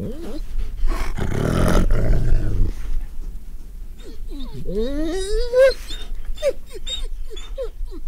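Grey wolves snarling and growling as they squabble over a mountain hare kill. A harsh growl comes in the first few seconds, then a rising whine about halfway through, then several short yelps near the end.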